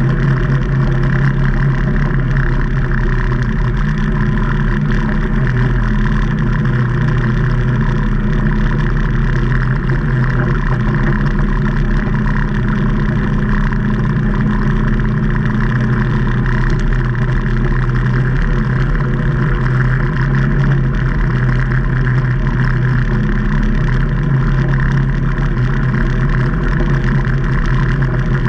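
The Rotax 800 V-twin engine of a 2019 Can-Am Maverick Trail 800 side-by-side running steadily, its drone holding an even pitch with only slight rises and dips.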